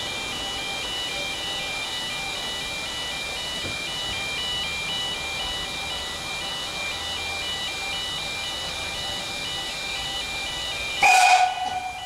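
Steam locomotive whistle: one short, loud blast near the end, a clear tone with a hiss of escaping steam. Before it there is steady background noise with a continuous alternating two-tone beeping.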